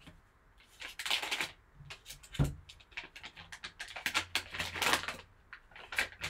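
Foil card pack and clear plastic bag crinkling and rustling in clusters of sharp crackles as the pack is opened, with one sharp thump about two and a half seconds in.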